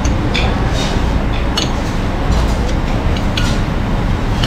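Metal spoons and forks clinking against ceramic plates while people eat, a handful of short sharp clinks over a steady low rumble.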